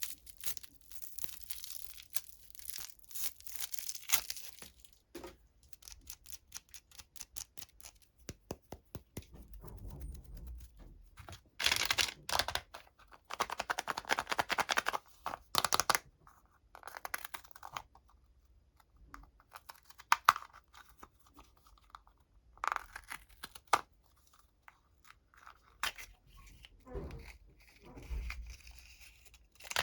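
Plastic candy wrappers being torn open and crinkled by hand: a run of short crackling rustles and clicks, with a longer, louder stretch of tearing and rustling about halfway through.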